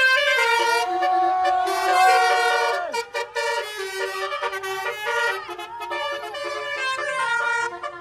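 Telolet horns playing a tune: loud horn notes stepping from pitch to pitch, with one long note that slides down about three seconds in.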